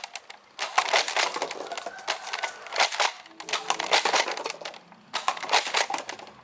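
Plastic toy blasters being handled and knocked together: a quick run of clicks, rustles and clatters, broken by a few short pauses.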